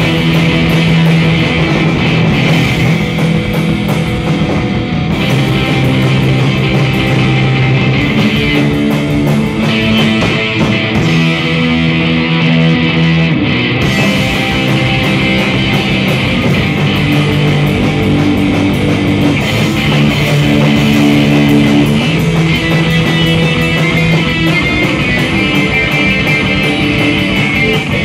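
Live rock band playing loudly on electric guitars, bass guitar and drum kit.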